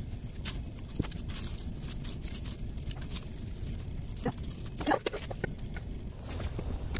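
Spinach being handled in a glass bowl: scattered soft knocks and rustles over a steady low hum, with a cluster of short, higher sounds about five seconds in.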